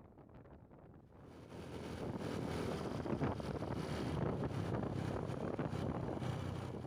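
Wind buffeting the microphone, a rushing noise that swells in about a second in and eases off near the end.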